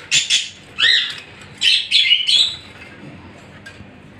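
Caged budgerigars chirping: several short, high chirps in the first two and a half seconds, one of them sliding up and down in pitch, then quieter.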